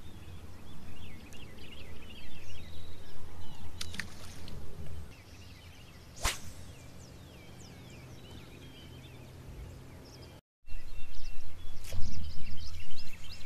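Small birds chirping and twittering over a low rumble, with one sharp swish of a fishing rod being cast about six seconds in.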